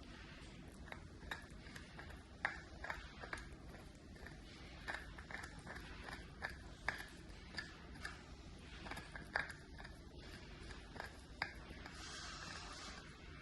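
A mini Bichon puppy gnawing a deer antler chew: teeth click and scrape on the hard antler in irregular sharp ticks, a few a second, with a softer scraping patch near the end.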